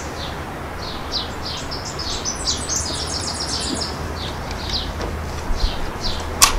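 Small songbirds chirping in quick runs of high notes, over a low wind rumble. Near the end comes one sharp crack from an air-rifle shot with the Umarex NXG multi-pump BB rifle.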